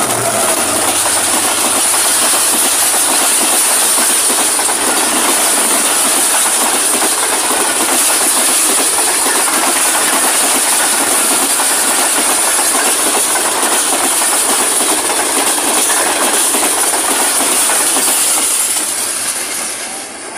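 Diesel-hauled express passenger train, led by a GE U40 locomotive, passing close at speed: a loud, steady rush of wheels on rails and passing coaches, with a steady high whine over it. It fades near the end as the last coaches go by.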